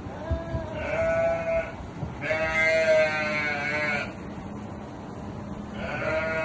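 Sheep bleating: three drawn-out bleats, the middle one the loudest and longest, with a few low thumps underneath.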